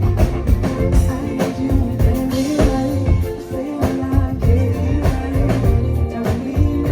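Live band playing with electric bass, drum kit and guitar, and a voice singing over them.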